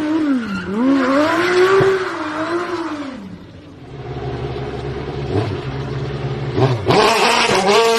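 Aston Martin Vulcan's V12 racing engine revving up and down as the car slides through a tight turn. About four seconds in, an Audi RS 5 DTM race car's V8 runs at low revs, then blips sharply up in revs near the end.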